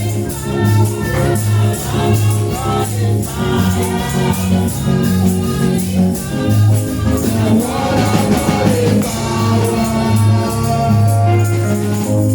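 Church praise music: voices singing over a bass line in held notes, with steady percussion strokes.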